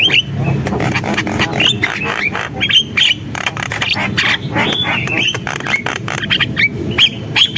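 Javan myna (jalak kebo) singing: a rapid, dense string of harsh rasps, clicks and short rising whistles.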